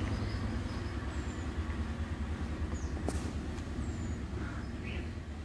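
A low, steady engine rumble from a running motor vehicle, easing slightly toward the end, with a few short bird chirps and one sharp click about three seconds in.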